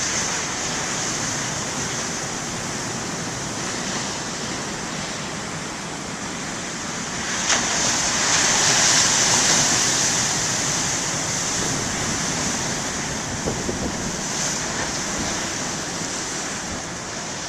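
Ocean surf: big waves breaking and rushing on the shore, with a steady wash and a larger breaker that comes in sharply about seven seconds in and swells for a few seconds before easing.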